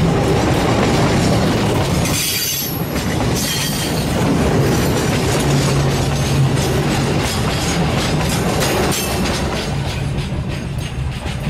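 Hopper wagons of a 900 mm narrow-gauge limestone train rolling past, their wheels clicking over the rail joints. There is a brief high wheel squeal about two seconds in. The sound eases off slightly near the end as the last wagon goes by.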